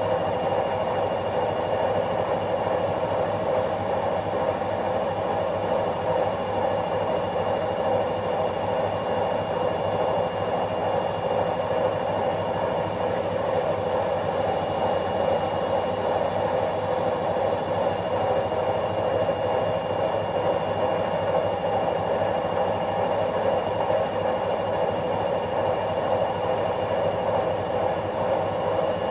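Washing machine running: a steady, even rushing noise with a few faint, steady high-pitched whines over it.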